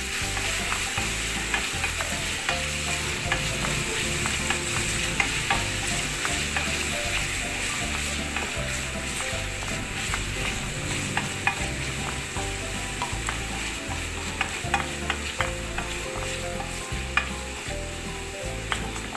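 Chicken pieces sizzling in butter and oil in a stainless steel frying pan, with a steady hiss, while a wooden spatula stirs them and scrapes and taps the pan in frequent short clicks.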